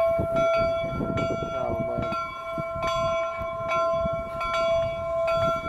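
A steam locomotive's bell ringing steadily, struck about every half to one second so that its ringing overlaps into one continuous sound. Low crowd voices murmur underneath.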